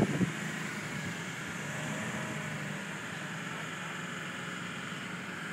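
A four-wheel-drive ute's engine running steadily under load as it drags a boat trailer through soft sand, its wheels spinning, under a steady hiss.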